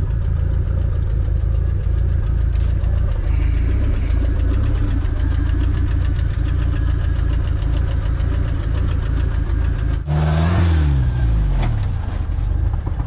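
Off-road jeep's engine running under load as it crawls over rocks. From about ten seconds in, the revs rise and fall in repeated surges.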